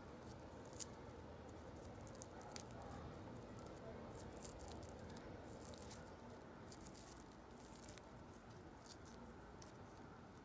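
Faint dry crackling and rustling of a withered marigold flower head being picked apart by fingers, the seeds and papery petals giving many small scattered ticks.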